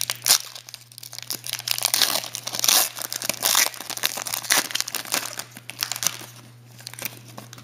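Plastic wrapping on a sports trading card box being crinkled and torn open. Dense crackling is busiest in the middle and thins out toward the end.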